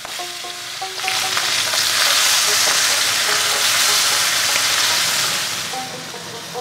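Small whole fish frying in hot oil in a pan: a loud sizzling hiss that swells about a second in and eases off near the end.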